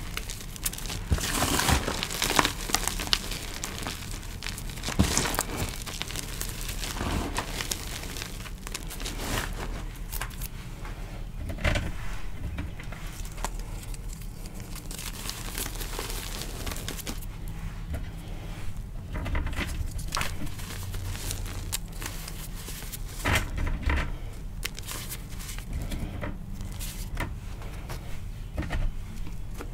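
Hands crushing and crumbling dyed gym chalk and loose chalk powder: irregular soft, gritty crunches and crumbles, with sharper crunches near the start, about 5 and 12 seconds in, and again around 23 seconds.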